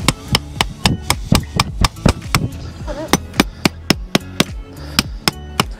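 Rubber mallet hammering a tent peg into the ground with a quick, even run of blows, about three to four a second.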